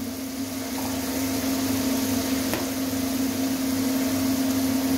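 A steady machine-like hum with an even hiss over it, running unchanged; a faint click about two and a half seconds in.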